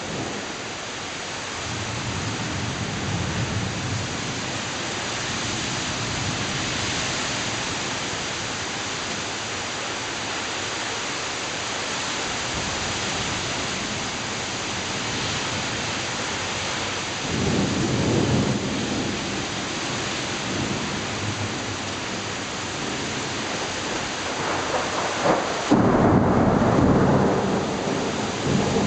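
Heavy thunderstorm rain pouring steadily, with thunder rumbling several times, the loudest rumble near the end.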